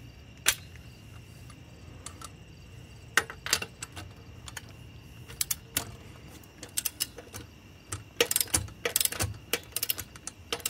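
Click-type torque wrench and socket working the wheel's lug nuts: scattered sharp metal clicks and clinks, with quick runs of ratchet clicking near the end.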